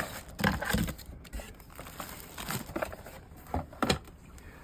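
Packaging crinkling and rustling with a few light knocks as an item is handled and taken out of its box.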